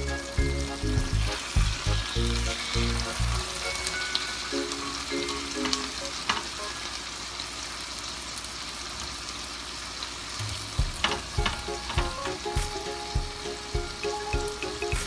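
Tuna steak sizzling in its sauce in a hot nonstick skillet, with a spatula and tongs working in the pan. Background music with a steady beat plays over it for the first few seconds, drops out, and comes back about two-thirds of the way in.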